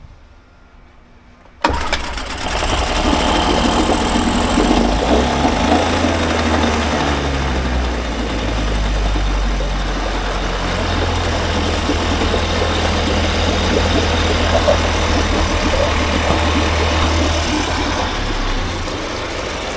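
Small outboard motor catches suddenly about two seconds in and then runs steadily, its leg in a bucket of water. It is running on a flywheel TIG-welded to the crankshaft as a repair, and the repair holds.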